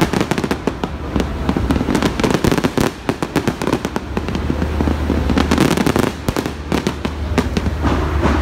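A fireworks display: a rapid, dense, irregular barrage of bangs and crackles, with a steady low rumble underneath.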